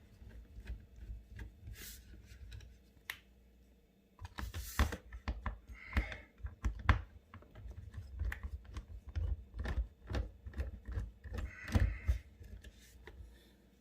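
Irregular clicks and taps of a 3/16-inch socket tool working the tiny screws that hold a dishwasher's soap dispenser, with a few short scraping handling noises.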